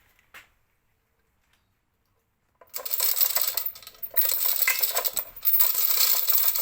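After a few seconds of near silence, metal chain rattling and clinking through a chain block, a dense run of quick metallic clicks that stops and starts.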